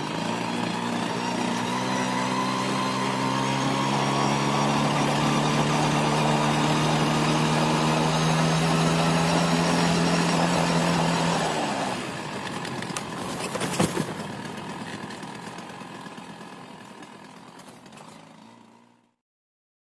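Spartamet 301 bicycle engine, a small two-stroke, running at a steady pitch. About two-thirds of the way through it drops back, a sharp click follows, and the sound fades away.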